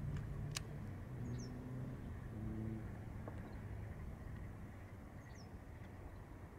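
Low hum of a distant vehicle engine, slowly fading, with a sharp click about half a second in and two short bird chirps.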